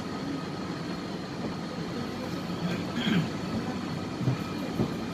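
Cabin of an MTR West Rail Line C-Train standing at a platform with its doors shut: a steady hum from the train's onboard equipment with a few steady high whining tones, and faint passenger voices.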